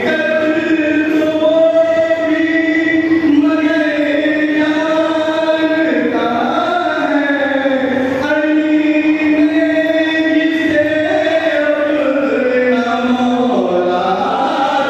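Devotional chanting: a voice sings long, held notes that slide between pitches, with brief breaths between phrases.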